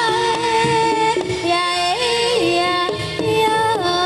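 Live jaranan music: a lead melody that slides between long held notes, over steady drum strokes.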